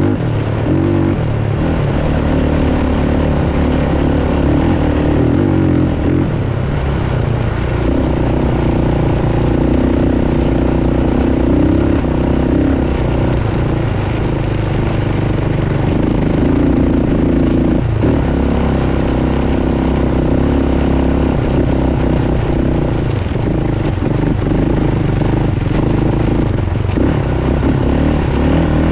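Off-road vehicle's engine running hard at speed across sand, its pitch rising and falling with the throttle.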